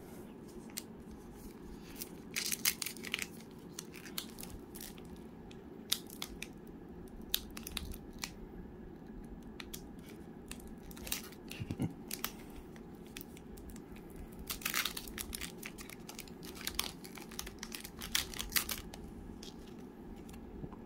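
A trading-card pack's wrapper being torn open and crinkled, in short bursts of crackling, with cards being handled. A faint steady hum runs under it.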